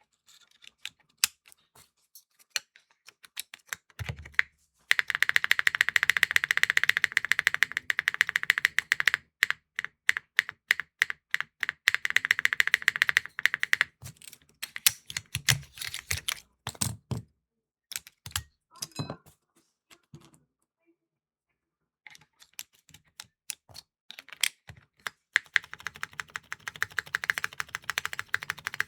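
Mechanical keyboard with Kailh Calligraphy R2 linear switches (MF stem, LCP housings) in an aluminium-plate Neo65 Core Plus with GMK keycaps being typed on: a few single key presses, then a long run of fast typing, slower separate presses, a short pause and another fast run near the end. The clack is wildly inconsistent from press to press, which the reviewer takes as the switch's fault.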